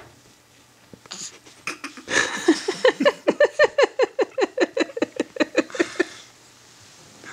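A baby's voice making a rapid string of short, squeaky grunts, about six a second for roughly four seconds, each dropping in pitch, as she stretches after waking.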